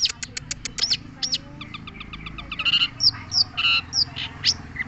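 Long-tailed shrike (cendet) singing: a quick run of sharp chips, then harsh, buzzy chatter mixed with short arched whistles.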